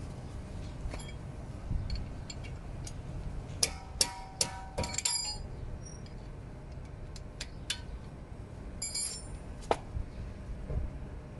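Metal tools and brake caliper parts clinking and tapping during a disc brake pad change: a quick cluster of ringing metallic clinks a few seconds in, then a few scattered clicks and clinks later, over a low rumble.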